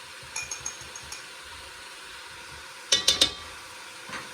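Kitchen utensils clinking: a few light ringing taps, then a quick cluster of louder metallic clanks about three seconds in, as spices are added to a pot and stirred in.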